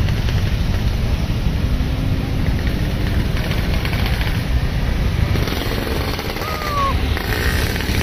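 Road traffic: diesel engines of coaches and a truck rumbling steadily, with motorcycles passing.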